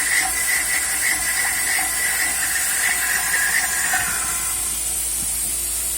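CNC router spindle running with a steady high hiss while the bit cuts, the cut giving a pulsing whine about three times a second that drops away about four seconds in as the spindle keeps spinning.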